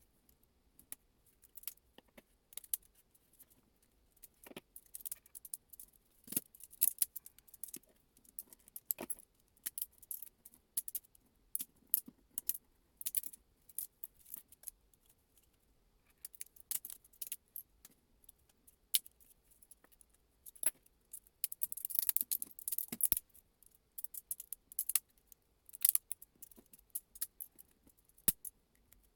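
Small hard objects clicking and clinking at irregular intervals, with a denser rattling run about three quarters of the way through.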